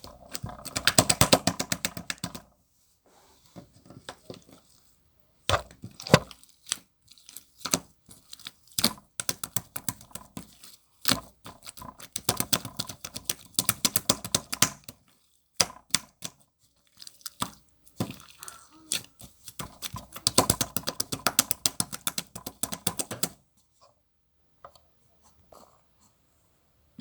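Slime mixed with shaving foam being squeezed and kneaded by hand, giving bursts of dense wet crackling and popping with single sharp snaps between them. The longest bursts come near the start, about halfway through, and again near the end.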